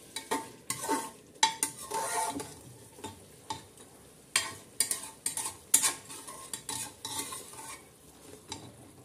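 A spatula scraping and knocking against the pressure cooker pot in irregular strokes as mutton is stirred and browned in spices, over a faint sizzle of the meat frying.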